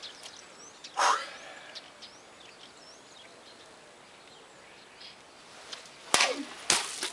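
Katana blade cutting through a thick sheet-metal can: a sharp metallic hit about six seconds in, followed about half a second later by a second loud crash. Birds chirp faintly throughout.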